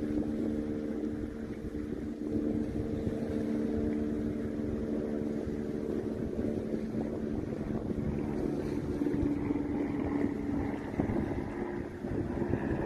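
Steady engine drone, several even tones whose pitch shifts about eight seconds in, over wind buffeting the microphone.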